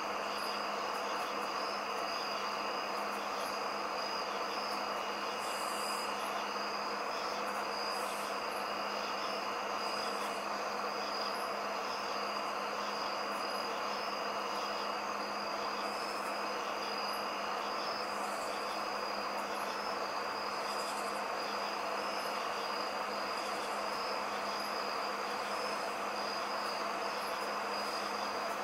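Steady night chorus of insects: an unbroken high trill with a fainter band that comes and goes, over a constant low hum.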